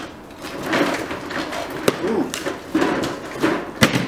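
Cardboard shipping box being opened: the packing tape is slit with a box cutter and the cardboard flaps are pulled open, with scraping and rustling and two sharp knocks, one about halfway through and one near the end.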